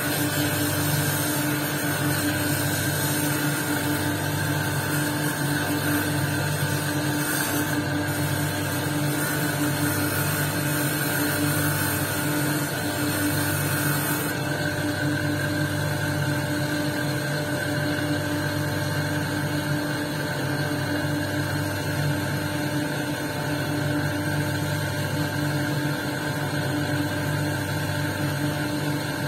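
Electric motor of a lapidary wheel running steadily with a hum while a quartz cabochon on a dop stick is worked against the spinning wheel. A higher hiss stops abruptly about halfway through, while the hum carries on.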